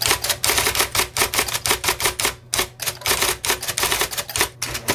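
IBM Selectric electric typewriter typing quickly, its typeball striking the card several times a second over the machine's steady motor hum, with two brief pauses, one about halfway through and one near the end.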